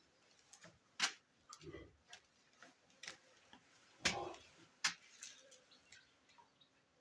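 Scattered sharp clicks and knocks over low background noise, with the loudest about a second in and two more around four to five seconds in.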